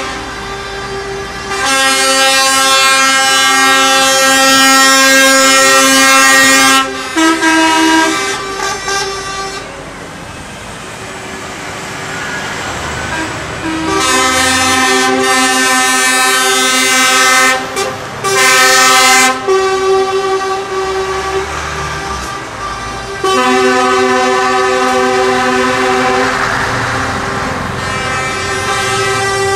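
Truck air horns sounding in long, loud, chord-like blasts, several in turn with a lull in the middle, over the low rumble of lorry engines driving past.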